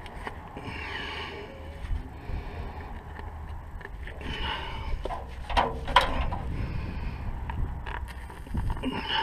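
Hand ratchet being worked in short strokes, giving brief spells of rasping clicks, with scraping and a couple of sharp knocks partway through over a steady low rumble.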